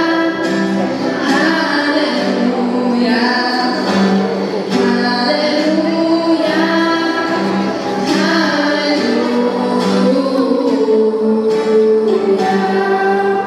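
Two young girls singing a song together into microphones, accompanied by acoustic guitar.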